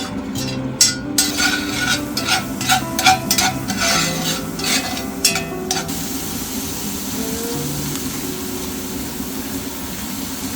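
Background guitar music with held, changing notes, over a run of clicks and clatter with a hiss from about one to six seconds in, then a fainter steady hiss.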